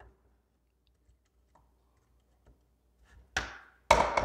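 Wire cutters snipping through leads on a speaker crossover board. A few faint ticks come first, then two sharp snips about half a second apart near the end, the second louder.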